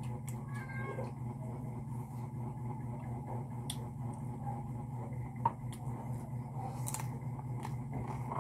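A cat meowing a few times over a steady low hum, with light clicks and one sharper click about two-thirds of the way through.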